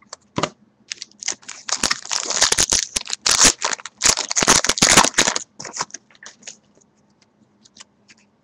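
Baseball trading cards being handled and flipped through: a quick run of dense papery flicks and clicks for a few seconds, with single ticks before and after.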